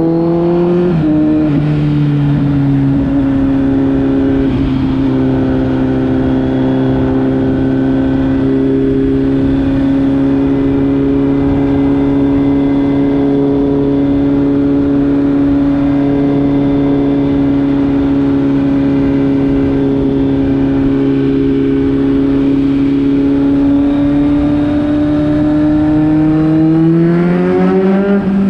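2021 Kawasaki Z900's inline-four engine running through a knock-off Akrapovic exhaust, held at steady revs. The revs dip slightly about a second in and climb near the end.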